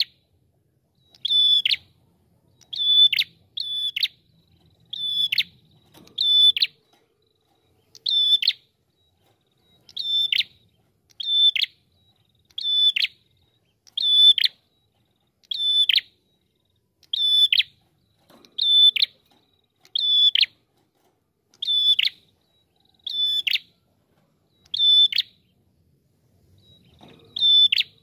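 Red-headed tailorbird (prenjak kepala merah) singing: a short, high, ringing note repeated about every one and a half seconds, each ending in a quick downward slur, now and then given as a quick pair.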